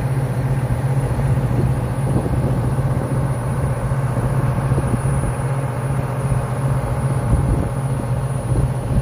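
John Deere 7210R tractor's diesel engine idling steadily, a low even drone.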